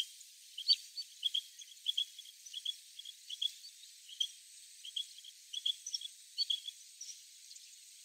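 Japanese quail calling with a run of short, high chirps, many of them in pairs, about two a second. It is an unusual call for the species rather than its usual 'ajapaa' crow.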